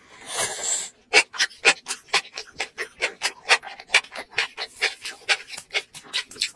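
Close-miked mukbang eating of spicy sauce-coated enoki mushrooms: a noisy slurp as the big mouthful goes in, then fast wet chewing with sharp clicks, about five or six a second.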